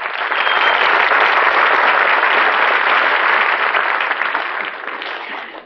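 Live studio audience applauding, loud at first and dying away near the end.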